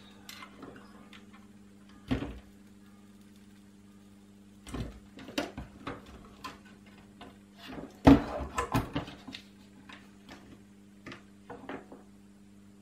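Knocks and clicks of a Commodore C64C mainboard and tools being handled on a work mat as the board is turned over, the loudest knock about eight seconds in. A faint steady low hum underneath.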